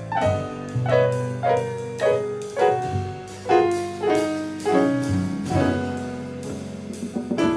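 Steinway grand piano playing jazz chords, struck every half second or so and easing off before a quick run of notes near the end.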